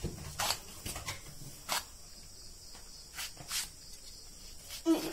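Brinjal being sliced against a boti blade: about six short, crisp cuts at irregular intervals, the last one near the end the loudest.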